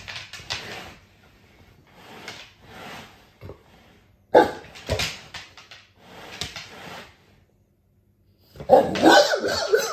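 Dogue de Bordeaux making repeated short vocal noises at its owner, with a longer, louder one near the end.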